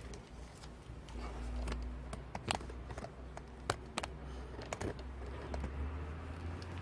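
Calico cat licking a squeeze-tube churu treat: scattered small wet clicks and smacks at an uneven pace, over a low steady hum.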